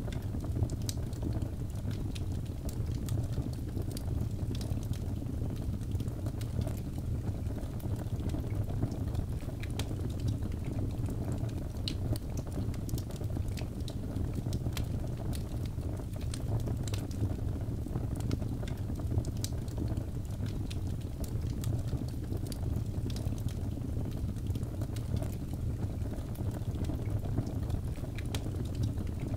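Wood fire in a fireplace crackling, with many small irregular pops and snaps over a steady low rumble of the burning logs.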